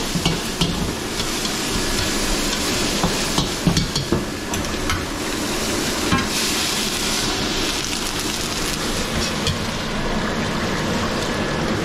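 Food sizzling in a hot wok, with scattered knocks and scrapes of a metal utensil against the pan during the first few seconds, over a steady kitchen rush.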